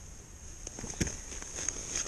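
Handling and clothing noise on a body-worn camera: scattered soft knocks and rustles, with one sharper knock about a second in.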